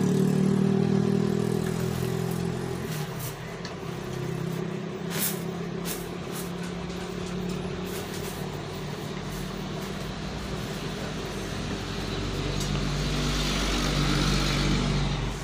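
A steady engine-like hum with a low, even pitch, weaker from about three seconds in and growing louder again near the end. A few sharp clicks, likely from the plastic gear parts being handled, with the clearest about five seconds in.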